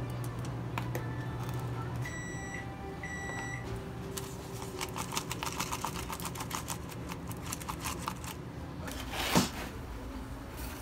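Fried chicken pieces shaken by hand in a paper cup to coat them in seasoning powder: a quick rattle of about five shakes a second for about four seconds. Before it come two short electronic beeps, and near the end there is one louder swish.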